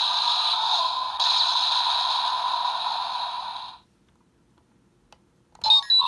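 Electronic sound effect played through the small speaker of a Kamen Rider Geats DX toy belt: a steady hissing whoosh with a high held tone, cutting off suddenly about four seconds in. A new burst of short electronic tones and clicks from the toy starts near the end.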